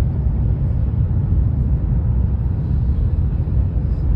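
Steady low rumble of the Whoosh high-speed train running, as heard inside the passenger cabin.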